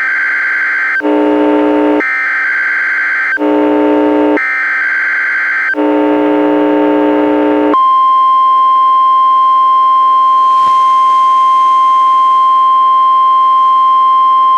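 NOAA Weather Radio EAS/SAME header, received on a weather radio: three bursts of warbling data tones, each about a second long. Between the bursts comes a harsh buzz of static interference on the transmitter. From about eight seconds in, a single long, steady alert tone sounds.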